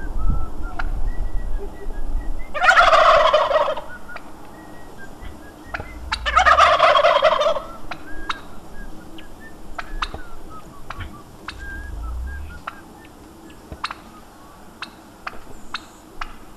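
Domestic white turkey tom gobbling twice, loudly, each call about a second long, while strutting in full display with tail fanned and wings dropped.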